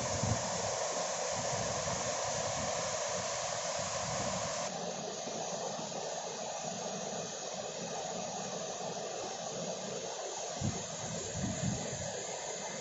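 Waterfall: a steady rush of falling water. It turns a little quieter and duller abruptly about a third of the way in, and a few low buffets of wind on the microphone come near the end.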